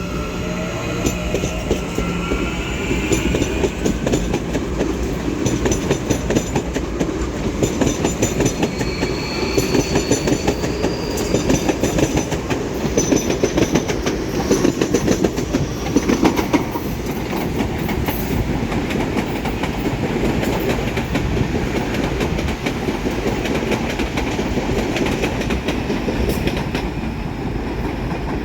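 Train passing at close range: a steady rumble with a rapid clatter of wheels over the rails. Thin wheel squeals come in the first few seconds and again about ten seconds in.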